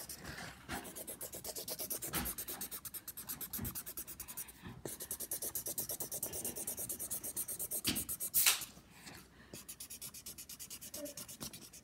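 Sharpie permanent marker scribbling fast back and forth on paper to fill a shape in with black: a quick, even run of scratchy strokes, with one louder scrape about eight and a half seconds in, the strokes growing sparser after it.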